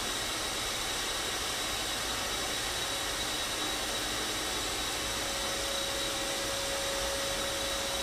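Small quadcopter drone's propellers whirring steadily in flight, a constant rushing hiss with a faint high whine; a lower steady tone joins about five seconds in.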